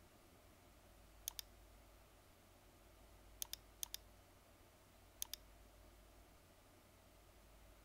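Computer mouse button clicked four times, each click a quick double tick of press and release: one about a second in, two close together around three and a half seconds, and one past five seconds. Faint steady hum underneath.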